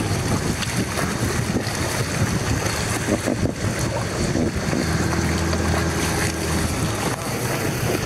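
Rushing river water churning around an inflatable raft, a steady wash with wind buffeting the microphone.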